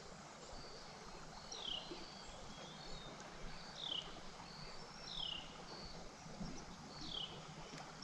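A small bird calling: short downward-sliding chirps, about five of them spread out, with a few brief high notes between, over a faint steady outdoor background.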